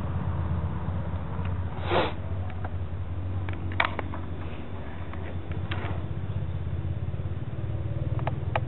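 Peugeot 405 GR's 1.9-litre carbureted four-cylinder engine idling steadily, heard from inside the cabin, with a short rustle about two seconds in and a few light clicks near the end.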